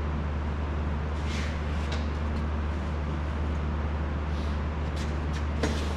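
Steady low machine hum with an even hiss over it, broken by a few faint clicks and knocks.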